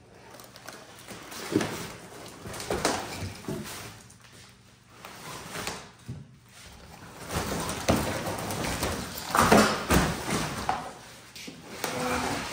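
A heavy cast iron fixture table section being hauled out of its cardboard box: cardboard scraping and rustling, plastic wrap crinkling, and several dull knocks and thumps, the loudest about nine and a half seconds in.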